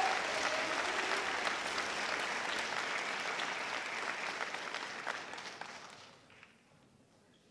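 Audience applauding, then dying away about six seconds in.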